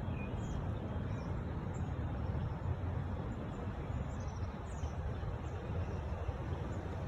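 Strong gusting wind buffeting the microphone as a steady low rumble, with a few faint high chirps.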